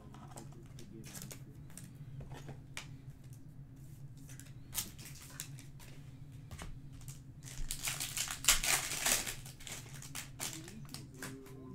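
Foil trading-card pack being torn open and crinkled by hand, a dense crackling burst about two-thirds of the way in, after scattered small clicks and taps of handling.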